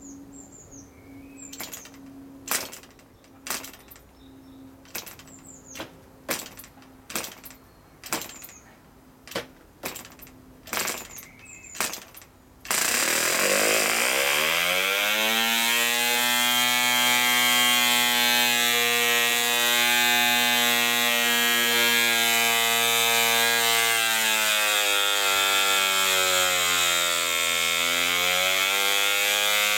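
AM 15 model aircraft diesel engine being started by flicking its propeller by hand: about a dozen sharp clicks, then it catches about 13 seconds in, rises in pitch and runs steadily at high speed with a harsh buzz. A little after two-thirds of the way through its speed sags and picks up again.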